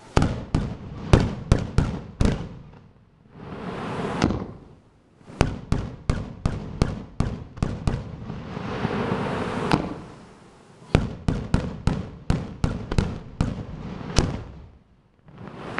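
Fireworks display: three rapid volleys of sharp bangs from bursting aerial shells, each run of bangs a couple of seconds long, with hissing between the runs.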